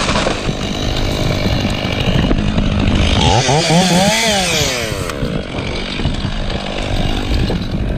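Chainsaw running and cutting wood. Its engine revs up and down in the middle, then settles back to a steady run.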